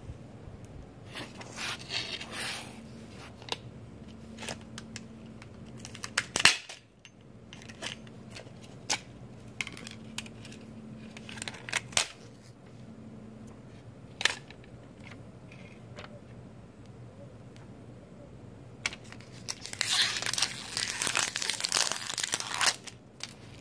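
Iomega Zip 100 disk cartridge's plastic shell clicking and snapping as it is pried apart with a screwdriver, in scattered sharp cracks. Near the end, a few seconds of crinkling as the thin magnetic disk from inside is crumpled by hand.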